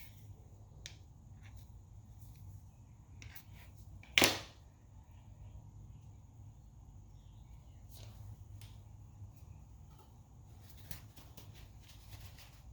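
Quiet handling of brake parts and tools: scattered faint clicks and one sharp click about four seconds in, over a low steady hum.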